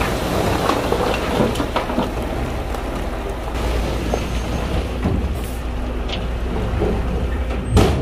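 Heavy earthmoving machinery's diesel engine running steadily, with stone and soil clattering and rattling. Near the end comes one loud, short burst of noise.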